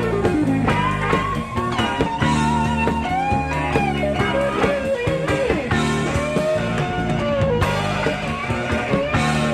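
Live rock band playing an instrumental passage: an electric lead guitar plays a solo of bent, gliding notes over bass and drums, from an old cassette-tape recording.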